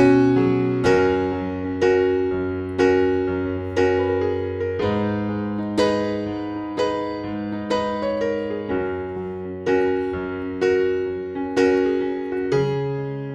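Slow piano music: single struck notes about once a second, each fading away, over held low notes.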